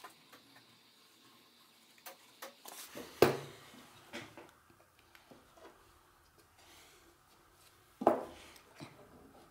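Plywood strips and a glue bottle handled on a wooden workbench: scattered light taps and rubbing, with two sharp knocks, one about three seconds in and a louder one near the end as the glued plywood layers are laid together.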